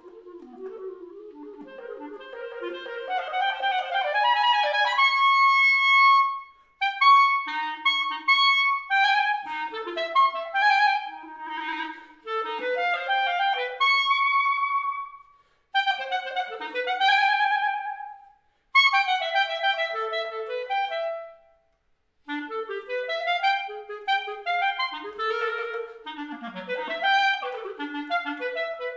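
Solo clarinet playing a contemporary unaccompanied piece: rapid runs and leaps mixed with briefly held high notes, in phrases broken by a few short pauses. The opening phrase starts soft and grows much louder over the first five seconds.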